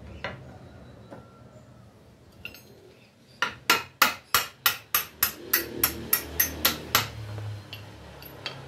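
A hammer striking the wooden frame of a bench: a quick, even run of about a dozen blows, roughly three a second, starting a few seconds in. Single knocks sound near the start and near the end.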